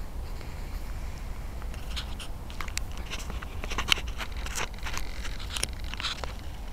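Scraping and crackling handling noise picked up by the 808 key-fob camera on a foam RC plane as it is moved about in the grass. The irregular clicks and scrapes start about two seconds in, over a steady low wind rumble.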